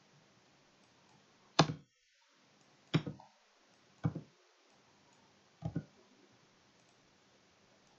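Computer mouse button clicking four times, a second or so apart, the first the loudest and the last a quick double click.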